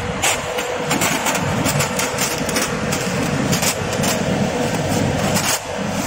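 Automatic hinge polishing machine running: a steady motor hum and low rumble with frequent sharp metallic clicks and knocks. The rumble drops away near the end.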